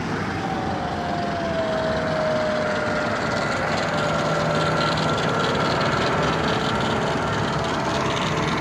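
Double-decker bus driving past close by and pulling away, its engine and drivetrain running with a steady whine over road noise; the whine drops slightly in pitch over the first few seconds, then a higher whine holds steady.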